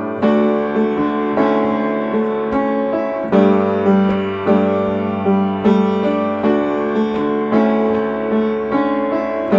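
Upright piano playing a simple chordal accompaniment, a chord struck about every 0.6 seconds and left to ring in a steady pulse.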